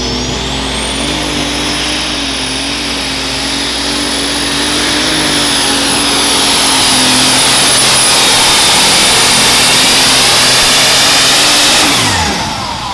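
Super stock pulling tractor's turbocharged, alcohol-burning engine at full throttle under load through a pull. A high turbo whine climbs in the first second or so and holds, the engine getting louder toward the end of the run. About twelve seconds in, the engine and whine drop away together as the throttle comes off at the end of the pull.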